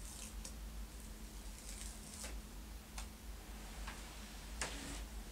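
Scattered light ticks and paper rustles as a small piece of adhesive-backed felt is handled and its paper backing peeled off, the biggest rustle near the end, over a steady low hum.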